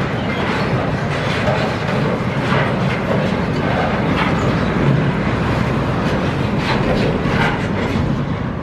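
Freight train of loaded double-deck car-carrier wagons rolling past: a steady rumble of steel wheels on rail with scattered clacks as wheels cross rail joints. The sound eases off as the last wagon goes by near the end.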